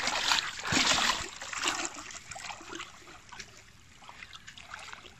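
Lake water splashing and trickling, loudest in the first two seconds and then dying away to faint drips.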